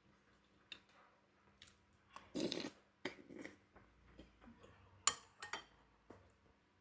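Spoon and bowl clinks and other small eating sounds, scattered and irregular. A louder, longer noisy sound about two and a half seconds in and a couple of sharp clicks about five seconds in.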